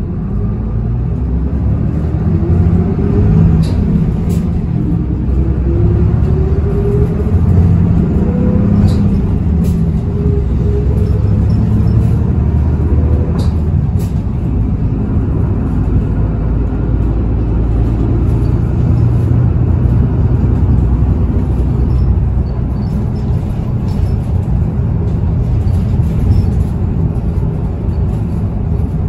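Isuzu Erga city bus's six-cylinder diesel engine and drivetrain heard from inside the cabin as the bus accelerates, the engine note climbing steadily for about the first nine seconds and then holding at a steady cruise. A few light clicks and rattles come through the cabin now and then.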